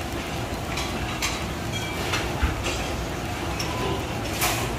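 Restaurant kitchen ambience: a steady low rumble with a few short clinks and clicks, the sharpest near the end.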